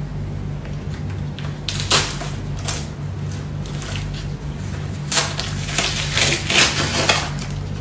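Tape being peeled off the edges of a painting on paper: a few rasping rips about two seconds in, then a longer run of them in the second half. A steady low hum sits underneath.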